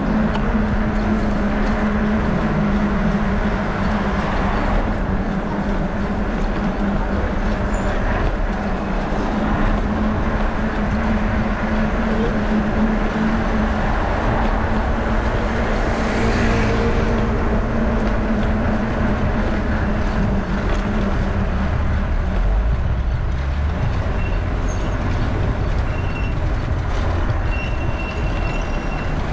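Steady wind rumble and rolling road noise picked up by a bicycle-mounted action camera while riding, with a low steady hum through most of it that fades out about three quarters of the way in, and a few short high whines near the end.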